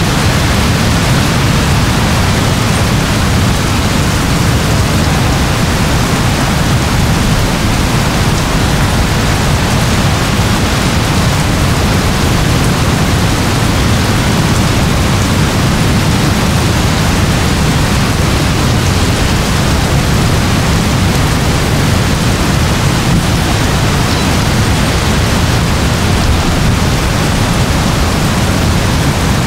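Heavy rain falling steadily: a dense, even hiss with a strong low rumble beneath it.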